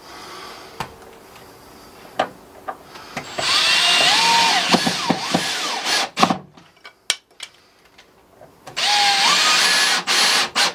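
Cordless drill-driver driving two screws through a gate hinge into a timber post: a run of about three seconds starting some three and a half seconds in, the motor's whine rising then settling, and a second, shorter run about nine seconds in, with a few clicks between.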